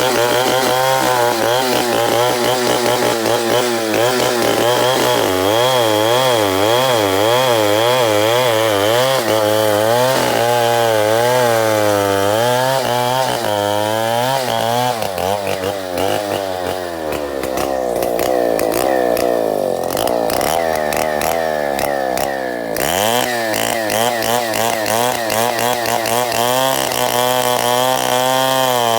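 Two-stroke chainsaw running at high revs while cutting wood, its pitch wavering up and down as the chain bites. About halfway through, the revs sag under load, then climb back quickly a few seconds later.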